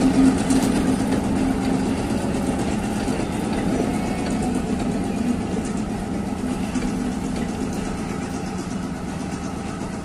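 Diesel train engine running steadily with a low hum, slowly fading.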